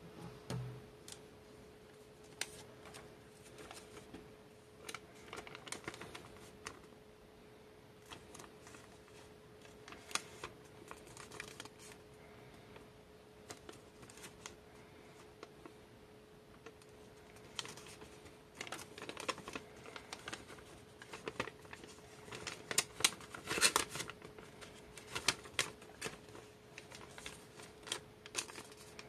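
Sheet of origami paper being folded and creased by hand: irregular crisp crackles and rustles that come thickest in the second half, over a faint steady hum.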